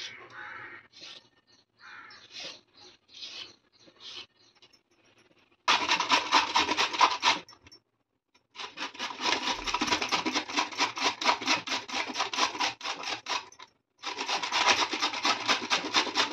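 A carrot being scraped with a hand peeler, a few faint separate strokes, then grated on a flat stainless-steel grater: fast rasping strokes in three runs with short breaks between them.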